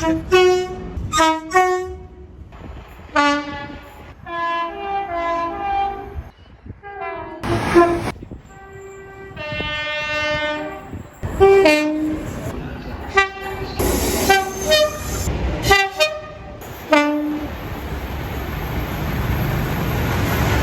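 Train horns sounding a run of short blasts that alternate between a higher and a lower note, with one longer held blast near the middle. Near the end the horns give way to the rising rumble of a passing train.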